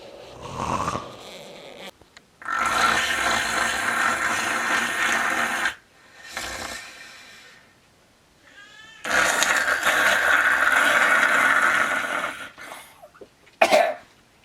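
A person snoring loudly: two long snores of about three seconds each, with shorter, quieter breaths between them.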